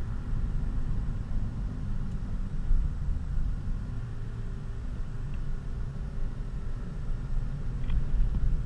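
Honda Civic FG2 coupe cruising, heard from inside the cabin: a steady low rumble of engine and road noise with no revving.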